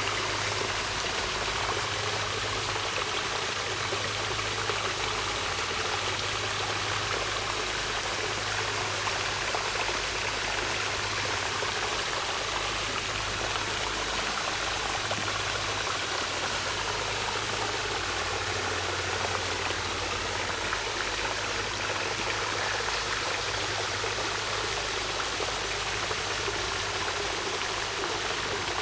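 A small, shallow woodland stream running over rocks and stones, a steady rushing and trickling of water.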